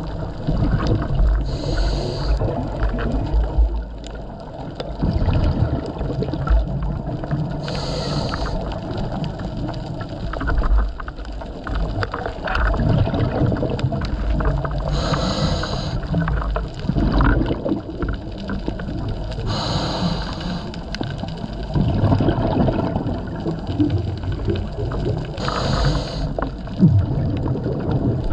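Scuba diver breathing through a regulator, heard underwater: five breaths, each a short burst of hiss and bubbles about every five to six seconds, over a steady low rumble of water on the housing.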